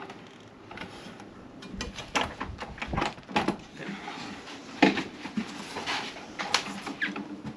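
Knocks, clicks and clunks of a Velux roof window sash being handled and moved in its frame. The sharpest knock comes about two-thirds of the way in.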